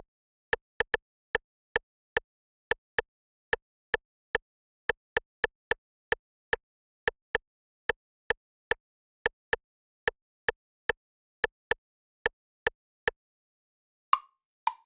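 A short percussive sound-effect sample, the 'bunk' sound, repeated as a syncopated Brazilian funk beat of about two to three hits a second. Near the end a different hit with a falling pitch comes in twice.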